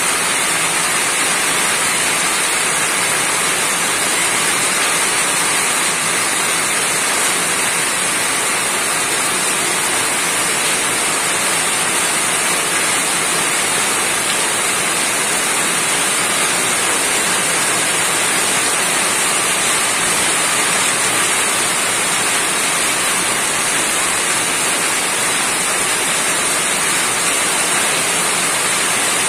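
Rain falling on a roof, a steady, even hiss of many drops with no let-up.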